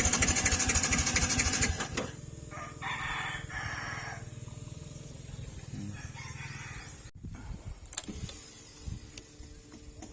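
A rooster crows twice. It is preceded by a loud mechanical whirring with rapid ticking that cuts off about two seconds in.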